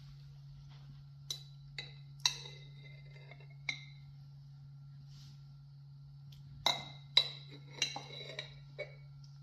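Metal spoon clinking against a glass jar while scooping thick yogurt, each clink with a short glassy ring. There are four clinks in the first four seconds, then a quicker run of about six between seven and nine seconds in.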